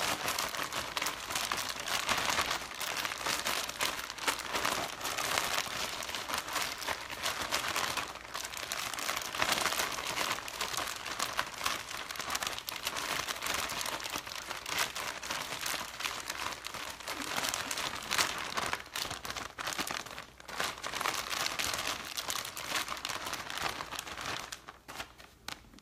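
Plastic zip-top bag crinkling and rustling continuously as chicken is kneaded and squished in marinade inside it, dying away near the end.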